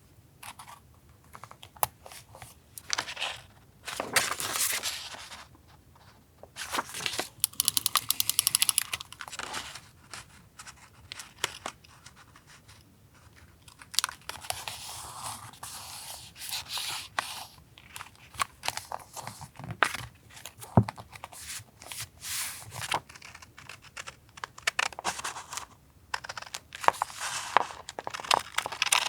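Paper collage work on a journal: paper and stickers handled, torn and cut, giving rustling, crinkling and tearing sounds with small ticks and taps, in irregular bursts with short pauses between.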